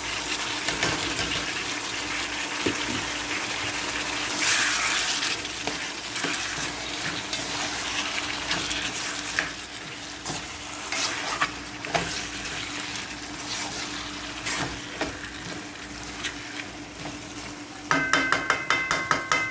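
Chicken and mixed vegetables sizzling in a hot non-stick wok while being stirred, with scattered clicks and scrapes of the utensil against the pan. Near the end there is a rapid run of rattling.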